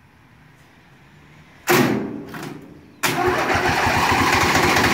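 Briggs & Stratton Intek lawn-tractor engine being started: a short burst of cranking about two seconds in that fades away, then from about three seconds in the engine catches and runs steadily and loudly.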